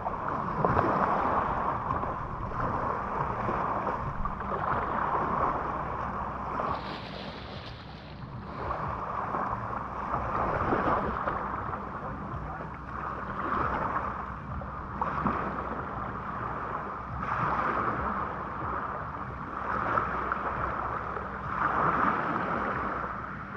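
Small lake waves washing onto a pebble shoreline, swelling and falling back every few seconds, with wind on the microphone.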